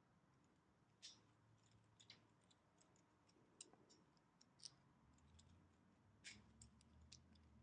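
Faint, scattered small plastic clicks, about half a dozen, as the ball-and-socket joints of 3D-printed hexagon fabric tiles are pressed together and snap into place, over quiet room tone.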